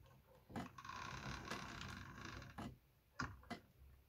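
3D-printed plastic pendulum clock mechanism: a sharp tick about half a second in, then about two seconds of continuous grating, clicking noise, then a few separate clicks near the end.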